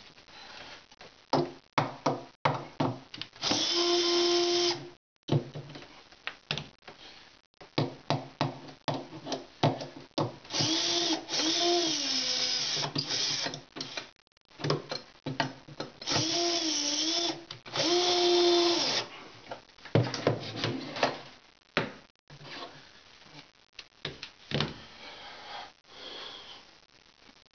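Bosch GSR 10.8-2-LI 10.8-volt cordless drill/driver driving screws into wood to fasten a metal drawer slide, in several runs of one to three seconds each. Its motor whine dips in pitch as screws bite and tighten, with clicks and knocks from handling the drill and screws between runs.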